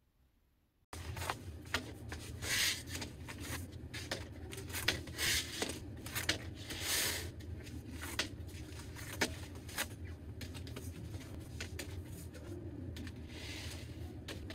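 White plates being set down and slid about on a table: a run of light clicks and scrapes with short bursts of rustling, over a steady low room hum. It starts suddenly about a second in after near silence.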